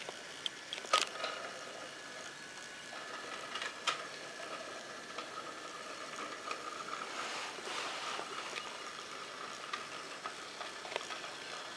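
Battery-powered toy train running along a wooden track, its small electric motor and gears giving a steady whine, with a few sharp clicks, the loudest about a second in.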